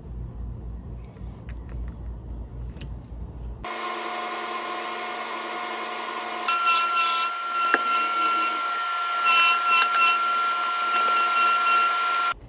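A low hum at first. About four seconds in, a key-cutting machine starts with a steady whine, then grows louder and shriller about six and a half seconds in as it cuts a car key to code, and stops abruptly near the end.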